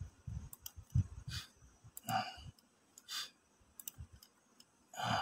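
A few light, irregularly spaced clicks and knocks of someone working a computer while opening a file, with short soft rustles between them.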